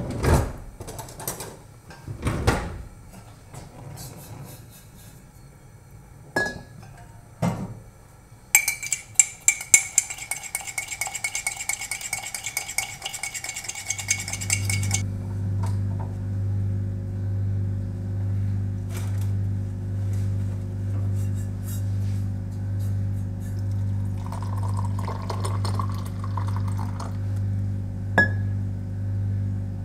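A teaspoon and ceramic cups clinking on a kitchen counter, then a spoon stirring rapidly in a cup for about six seconds. After that a steady low hum with a slow pulse, about once a second, runs to the end under a few faint clinks.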